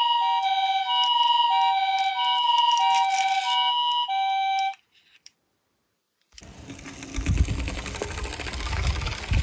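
Two-tone hi-lo ambulance-style siren, a high and a low note alternating about twice a second; it stops abruptly. After a short silence, a low rumbling noise sets in.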